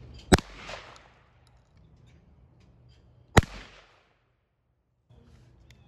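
Two shotgun shots about three seconds apart, each a sharp report followed by a short echo fading over about half a second.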